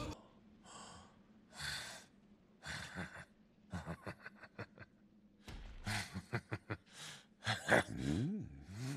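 A character's voice in heavy breaths, sighs and gasps: separate breaths at first, a cluster of short clicks around four seconds in, then voiced breaths with gliding pitch after a low thump about five and a half seconds in.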